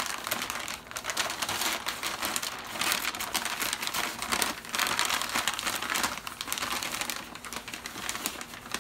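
Stiff, parchment-like wrapping paper crinkling and rustling as hands pull it open off a wrapped rifle barrel.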